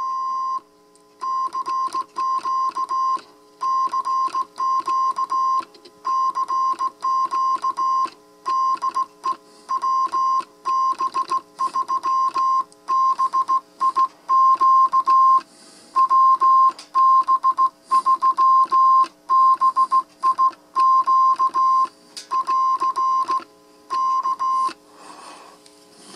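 Morse code sidetone of a Splinter 40-meter QRP breadboard transceiver: a single steady beep keyed on and off in short and long elements (dits and dahs) on the rig's built-in key, sending a CQ call while transmitting. The keying stops near the end.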